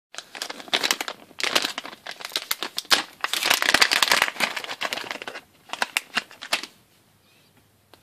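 Small clear plastic zip-lock bag crinkling and crackling as it is handled and pulled open, in dense irregular crackles that stop shortly before the end.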